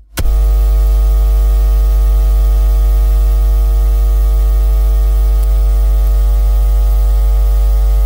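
Loud steady electrical hum, buzzy with many overtones and a layer of hiss, cutting in suddenly just after the start and holding unchanged.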